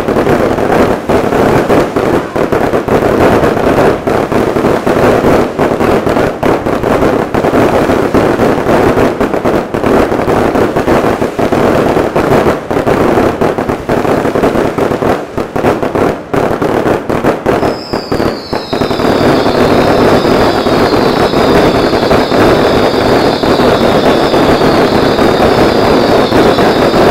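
Fireworks display firing a dense, continuous barrage of rapid bangs and crackling as rockets launch and burst in quick succession. About two-thirds of the way in, a chorus of high, slightly falling whistles from whistling fireworks joins the bangs and keeps on.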